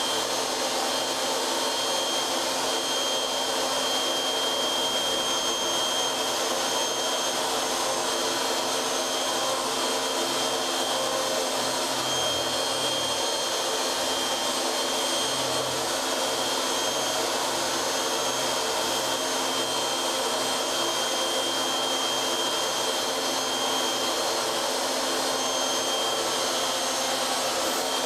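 CNC router's spindle motor running steadily at high speed with a fixed high-pitched whine as the bit cuts into a wooden block, over a continuous airy rushing noise.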